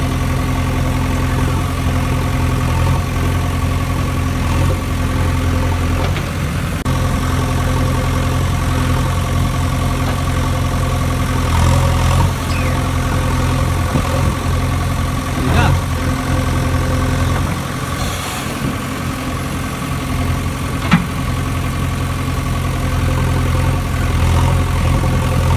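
A steady engine idling hum runs throughout. Over it come a few sharp clacks as stones drop into a plastic toy dump truck's bed.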